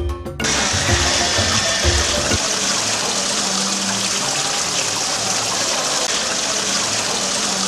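Water from a small fountain trickling and splashing over black lava rocks, a steady rushing that starts just after the beginning. Light percussive music plays under it and stops about two seconds in.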